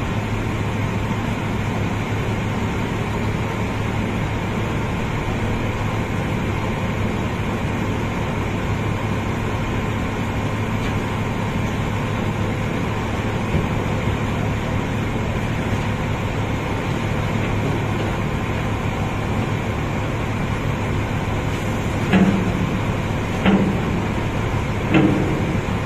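Steady mechanical drone of a sand barge's unloading machinery running continuously. Near the end there are three short knocks about a second and a half apart.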